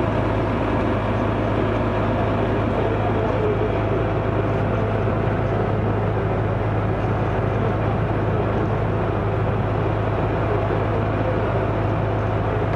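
Fire engine running at a standstill: a steady, unbroken low engine drone with a faint constant whine above it.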